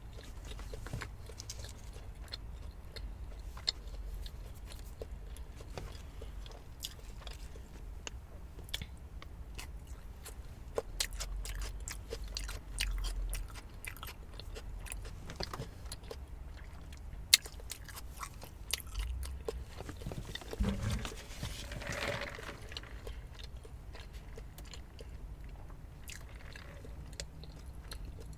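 A person chewing and biting crunchy fast food close to the microphone, with many small sharp mouth clicks and smacks. About three-quarters of the way in there is a brief louder low sound.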